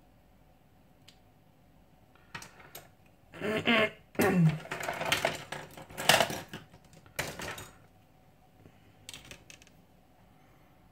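Irregular clatter of plastic pry tools and screwdrivers being picked up, dropped and shuffled on a workbench, with a few more sharp clicks afterwards.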